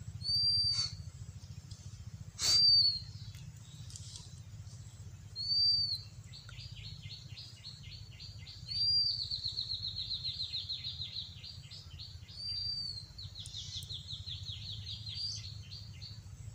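A bird calling: a short, high, arched note every few seconds, with long fast trills of quick repeated notes between them, over a steady low rumble. A single sharp knock sounds about two and a half seconds in.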